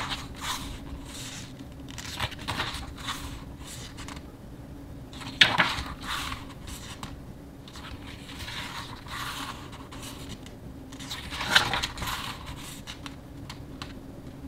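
Pages of a hardcover photobook being turned by hand: soft paper rustling and sliding, with a sharp page flap three times, at the start, about five seconds in and about eleven and a half seconds in.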